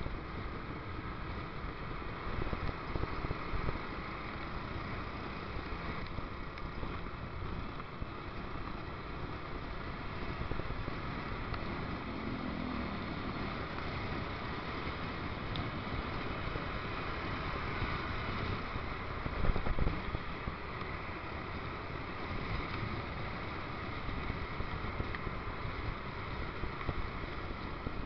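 Steady riding noise of a motorcycle heard through an action camera's waterproof case: wind and road rumble with the engine underneath. There is a brief louder swell about two-thirds of the way through.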